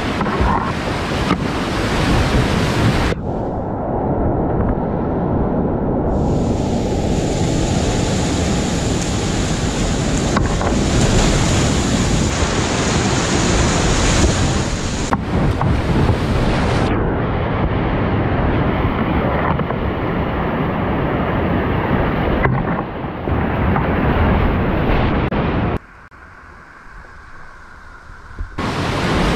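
Loud rushing whitewater of a river rapid heard from a kayak, with wind buffeting the camera microphone. The rush changes abruptly several times, and near the end it drops to a much quieter, muffled rush for a couple of seconds before coming back loud.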